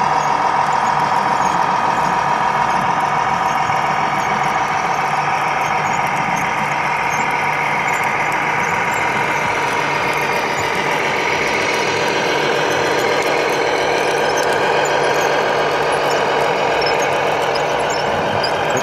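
Radio-controlled scale model trucks running, with a steady high-pitched whine from their electric drive motors and gearboxes over a low hum; the whine shifts pitch slightly around the middle.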